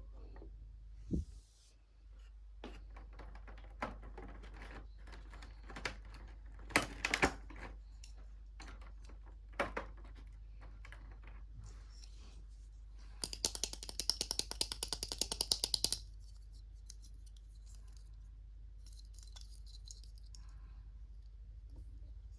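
Small plastic toy pieces being handled, with scattered light clicks and taps. Just past halfway comes a quick run of rapid clicking lasting about three seconds.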